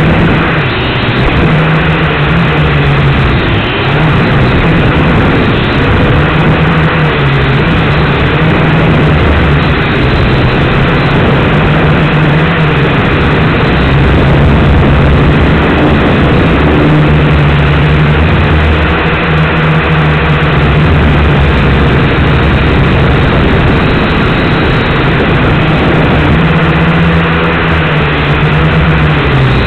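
Micro quadcopter's electric motors and propellers buzzing, heard close up through the onboard camera. The pitch keeps rising and falling as the quad manoeuvres.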